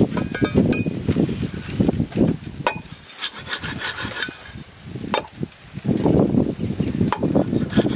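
Cleaver blade scraping and cutting along a pangasius catfish on a wooden chopping block, in repeated uneven strokes with a few sharp knocks of the blade on the wood.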